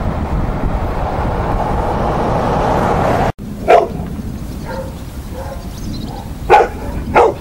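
Wind rumbling on the microphone, cut off abruptly. Then a dog barks three times: once, and after a pause twice close together near the end, with fainter yips in between.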